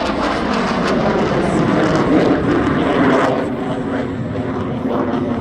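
Jet noise from Blue Angels F/A-18 Super Hornets flying overhead: a loud, steady roar that eases slightly a little past halfway.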